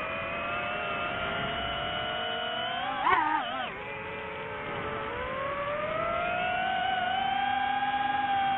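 Drone's motors and propellers whining steadily, the pitch drifting up and down as it adjusts its flight, with a brief loud warble about three seconds in.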